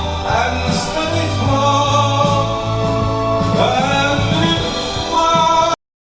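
Pop song with a sung vocal line holding long, gliding notes over instrumental backing and bass. It cuts off suddenly near the end, leaving dead silence.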